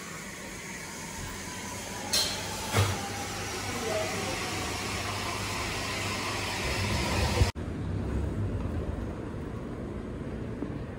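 Café room noise: a steady hiss and hum, with two sharp clicks a little past two seconds in. About seven and a half seconds in it cuts abruptly to a quieter, duller outdoor street ambience.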